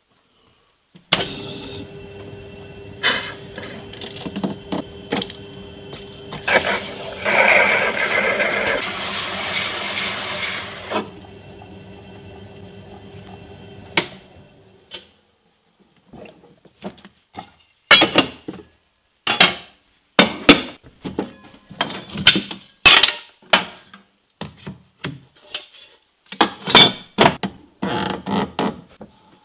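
Water-cooled metallographic grinding and polishing machine running with a steady hum, with a louder rushing stretch in the middle. It stops about halfway. A run of sharp knocks and clatters follows as the disc and grinding paper are handled.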